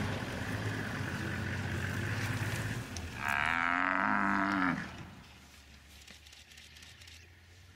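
A Cape buffalo gives one loud bellow lasting about a second and a half, falling slightly in pitch: a distress call from a buffalo under attack by lions. Before it, a vehicle engine runs steadily and stops about three seconds in.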